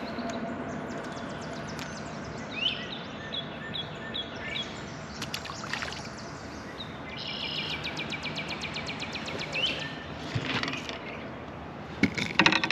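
Songbirds calling: short high chirps repeated about twice a second, then a fast buzzy trill lasting a couple of seconds about seven seconds in, over steady outdoor background noise. A few sharp clicks sound near the end.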